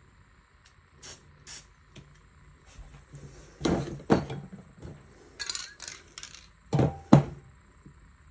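Knocks and clatter of spray-paint tools and cans being handled on the work surface, with a few short hissy sounds between them; the two loudest knocks come about seven seconds in.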